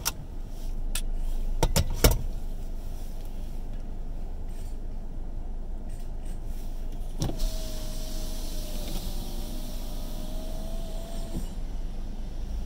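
Inside a stopped car, a low steady rumble runs under a few sharp clicks in the first two seconds. About seven seconds in, a click starts a small electric motor whining at a steady pitch for about four seconds, and another click stops it.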